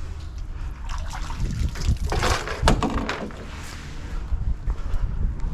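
Above-ground pool water sloshing and dripping as an old pool pillow is pulled out, with the busiest splashing about two to three seconds in.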